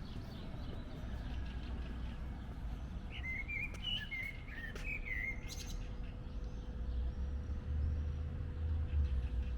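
A songbird sings a short, warbling run of chirps about three seconds in, over a steady low rumble that grows louder in the second half.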